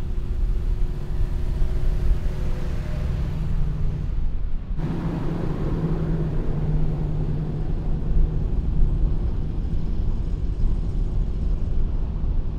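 First-generation Toyota Tundra pickup driving over beach sand, its engine a steady low drone over a heavy low rumble. The sound dips briefly about five seconds in, and the drone is louder after it.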